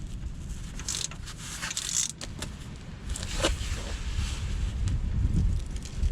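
Metal clinking and scraping of a cap-type oil filter wrench on the oil filter as it is worked loose, in a few scattered clicks over a low rumbling noise.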